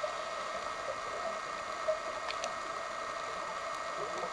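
Steady underwater hum with hiss, with a couple of faint clicks about two and a half seconds in.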